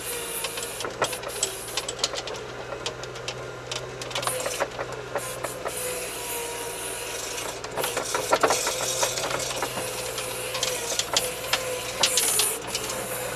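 All-terrain vehicle's engine running steadily under load, heard from inside the cab, with frequent sharp clicks and rattles from the cab and body as the machine labours in deep snow without its differential locks engaged.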